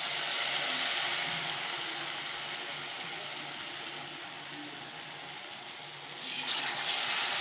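Batter-coated balls deep-frying in hot oil in a kadai, sizzling steadily. The sizzle flares up as each new ball is dropped in, at the start and again about six seconds in.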